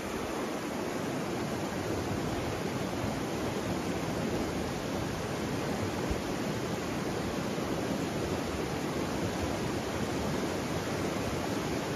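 Fast mountain river rushing over rocks: a steady, even rush of whitewater.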